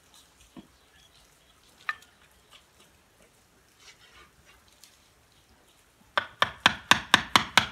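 Wooden mallet driving a chisel into the trunk wood of a large sanh (Ficus) bonsai: a quick run of sharp knocks, about six or seven a second, starting about six seconds in. One faint knock comes before that, about two seconds in.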